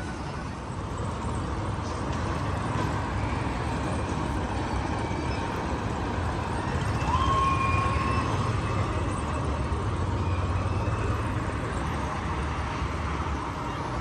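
Steady low rumble of heavy construction machinery, the diesel engines of an excavator and a bulldozer running across the site. About seven seconds in, a single high steady tone sounds for a second or so.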